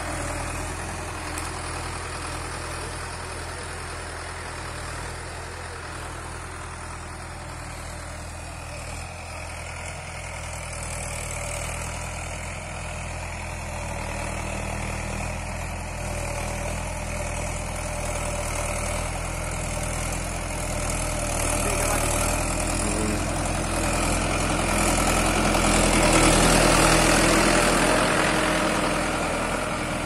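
Farm tractor's diesel engine running steadily as it pulls a tine cultivator through the soil. It grows louder as the tractor comes closer, is loudest a few seconds before the end, then eases off slightly.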